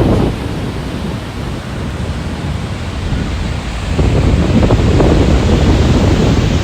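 Strong wind buffeting the microphone over the rush of ocean surf breaking, growing louder about four seconds in.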